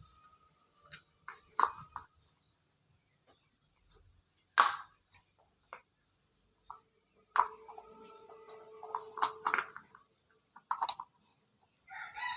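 A few scattered sharp knocks and clicks, as of objects being handled and set down, with a brief steady tone for about two seconds past the middle.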